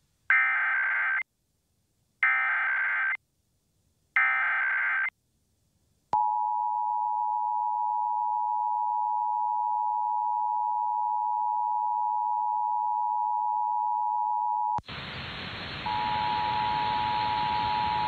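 Emergency Alert System Required Monthly Test broadcast: three one-second bursts of SAME header data, then the two-tone EAS attention signal held steady for about nine seconds. It cuts to a steady hiss, and about a second later the two-tone attention signal starts again under the hiss.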